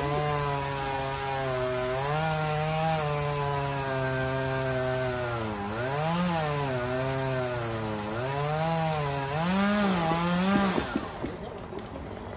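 Stihl chainsaw cutting through the trunk high in a hemlock, heard from the ground far below, its engine note bogging down and picking up again several times in the cut. It stops about eleven seconds in with a few sharp wood cracks as the top breaks free.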